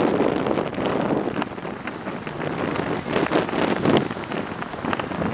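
Gusty wind buffeting the microphone, with a rough rushing noise and scattered crackles, louder in surges.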